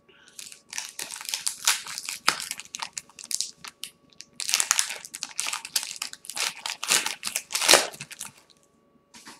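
Plastic wrapper of a 2016 Donruss baseball card pack being torn open and crumpled by hand, a continuous crinkling crackle with a short pause about four seconds in.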